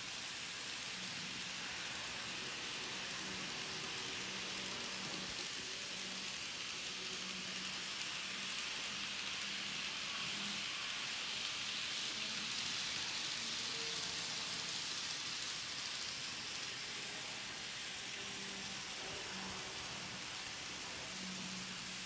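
Kato N scale model train running on its track under a DC power pack: a steady soft hiss of wheels and motor that grows louder about halfway through as the train passes close, then eases off. A faint low hum comes and goes underneath.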